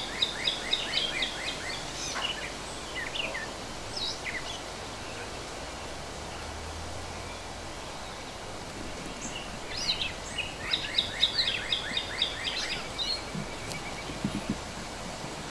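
A songbird singing: a burst of rapid, repeated high notes at the start and another about two-thirds through, with a few scattered single notes between, over a steady outdoor hiss.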